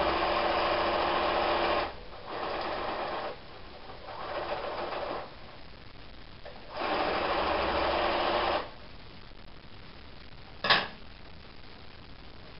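Domestic electric sewing machine stitching patchwork pieces in four runs: a loud run, two shorter, quieter ones, then another loud run that stops about nine seconds in. A single sharp click follows near the end.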